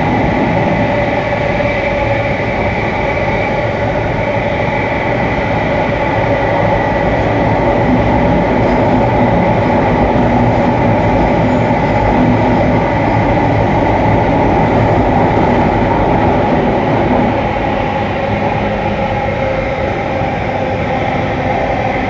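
Loud, steady rush and hum inside a moving metro train carriage, with the carriage air-conditioning running loudly. Several steady tones sit over the noise and ease slightly after about seventeen seconds.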